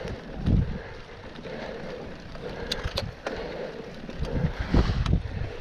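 Mountain bike ridden over a bumpy grass trail, heard from a handlebar-mounted camera: wind buffeting the microphone and a low tyre rumble, with heavy thumps as the bike hits bumps about half a second in and again near the end, and a couple of sharp clicks in the middle.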